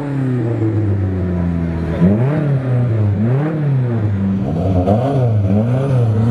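Banger racing car engine running, first with a steady, slowly falling drone, then from about two seconds in revving up and down in a regular rhythm, roughly once every two-thirds of a second.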